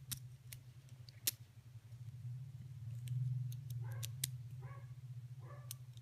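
Faint, irregular small clicks from the flame-adjuster gear of a Bic lighter being turned over and over toward plus to raise the flame, over a low steady hum. Near the end, three short whine-like sounds come a little under a second apart.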